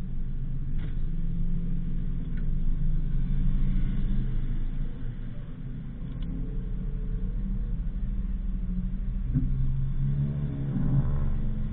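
Daihatsu Sigra car on the move: steady engine and road rumble, the engine note rising and falling slightly.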